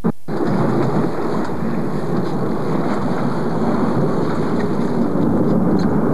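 Steady rumbling wind buffeting the camcorder microphone on a boat at sea.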